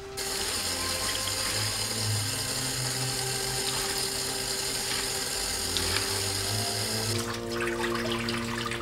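Water running hard from a tap, switched on suddenly and cut off about seven seconds in, with background music underneath.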